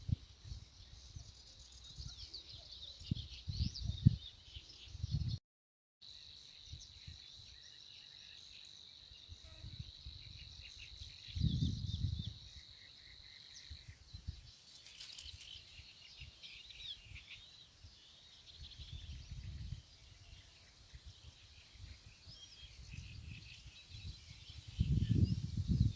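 Small birds chirping and trilling, with a steady high insect-like buzz for several seconds after a brief dropout, over irregular low thuds and rumbles that grow louder near the end.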